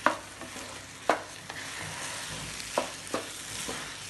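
Jeeraka samba rice sizzling as it is stir-fried in oil, being toasted before the water goes in. A wooden spatula scrapes through the grains and knocks sharply against the pot about five times.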